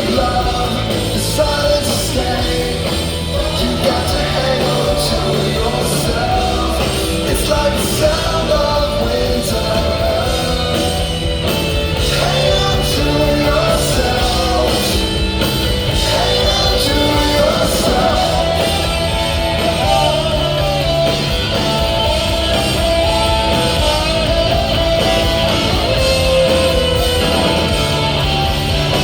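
Loud rock music with a singing voice, played continuously.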